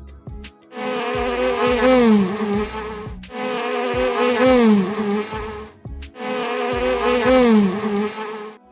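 An insect buzzing, repeated three times in bursts of a little over two seconds each. Each burst holds a steady pitch that dips and wavers near its end.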